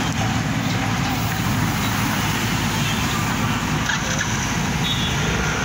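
Hyundai 140LC-9 crawler excavator's diesel engine running steadily while its arm moves.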